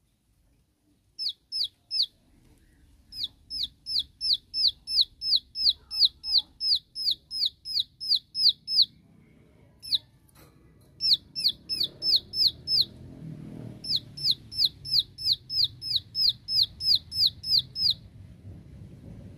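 Plain prinia (ciblek sawah) giving its rapid 'shooting' call: long runs of sharp, down-slurred clicking notes, about three a second, in several bursts with short pauses. It is the challenge call with which the bird summons rival prinias.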